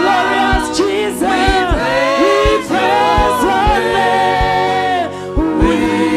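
Gospel worship music: sung voices held and sliding over a band, with a kick drum thumping underneath.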